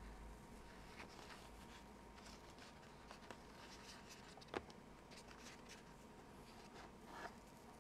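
Faint handling noise of gloved fingers rubbing and fumbling with a small plastic camera module, its USB cable and mount, with scattered soft scrapes and one sharp click about four and a half seconds in.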